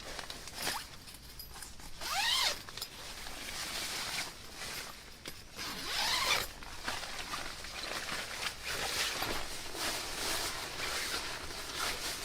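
A zipper being pulled in two main strokes, about two seconds in and again about six seconds in, with handling and rustling of fabric between.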